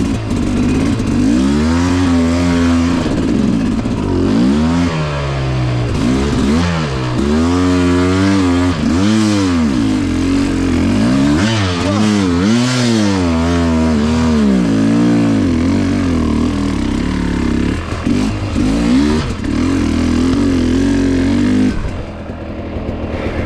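Two-stroke dirt bike engine ridden hard on a rough trail, its pitch climbing and falling again and again as the throttle is worked. The engine note drops back near the end.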